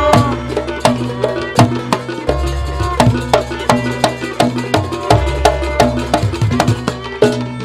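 Live jaranan ensemble music: a rapid stream of drum and struck-percussion strokes over sustained pitched tones, with deep ringing low strokes starting roughly every two to three seconds.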